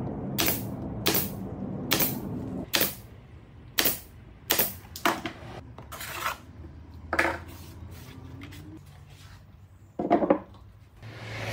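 Pneumatic nail gun firing nails into a wooden drawer box: about ten sharp shots at irregular intervals of roughly half a second to a second, then a louder single knock near the end.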